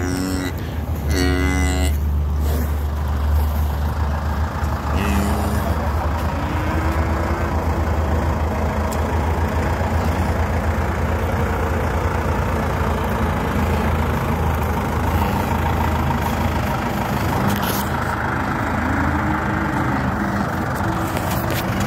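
Steady low rumble with a few drawn-out, low, rising-and-falling calls from the cattle in the pen: one near the start, one about five to seven seconds in, and one near the end.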